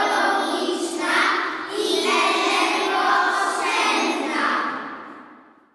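A group of children singing together in unison, fading out near the end.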